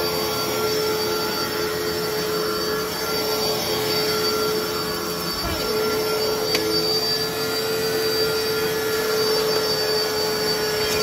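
Fantom Fury upright vacuum cleaner running on carpet, its motor giving a loud, steady high whine that wavers briefly about halfway through. The motor is badly worn: the owner calls it shot.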